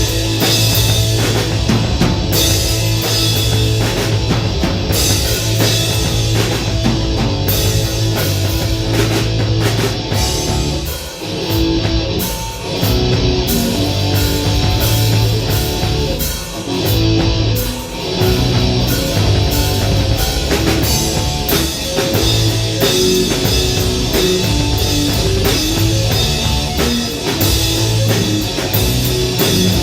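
Live rock band playing, with drum kit, guitar and bass. There are brief drops in the playing about eleven seconds in and again around seventeen seconds in.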